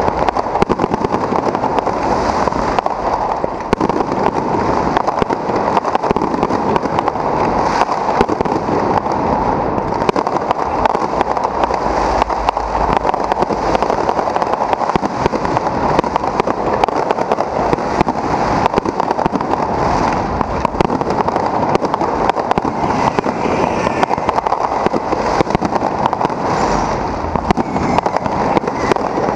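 Aerial fireworks bursting overhead in a continuous barrage: a dense, unbroken stream of pops and crackling with no pauses.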